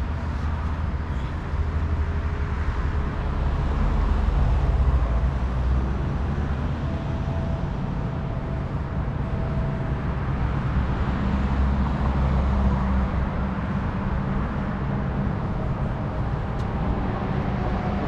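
Steady low rumble of a running engine, rising and falling slightly in loudness.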